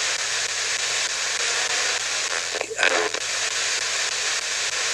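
Spirit box radio static played through a small external speaker: a steady hiss as the box sweeps rapidly through radio stations, broken briefly about halfway through by a short fragment of sound.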